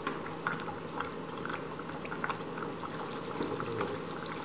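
A pot of sauce with tofu and snow peas simmering: a steady bubbling with scattered small pops.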